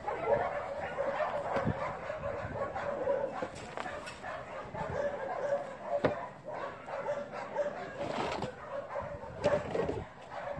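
A dog whining and yipping.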